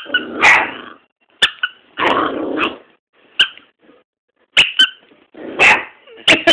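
Young red-nose pit bull puppy giving several short, separate barks, one to two seconds apart.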